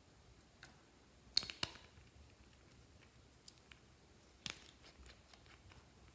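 Glossy slime being worked by hand, giving faint scattered sticky clicks and pops, a few a second at most, loudest about a second and a half in.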